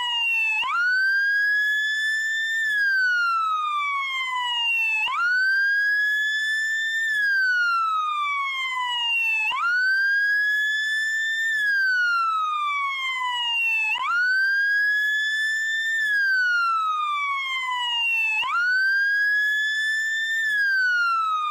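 American police car siren in wail mode: one pitched tone that jumps up, climbs slowly for about two seconds, then falls slowly for about two and a half seconds, repeating about every four and a half seconds.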